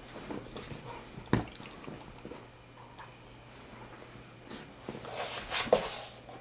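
Two dogs play-wrestling on a cushioned fabric dog bed: scuffling and rustling of the bed cover, with one sharp knock about a second in and a louder burst of scuffling near the end.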